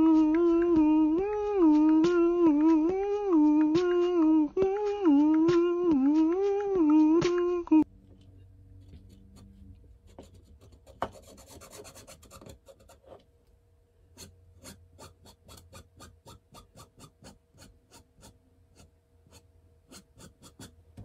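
A tune hummed on one pitched voice, moving up and down in small steps, which cuts off sharply about eight seconds in. After that comes the faint scratching and tapping of a permanent marker's tip on a 3D-printed PLA plastic piece, in quick light strokes.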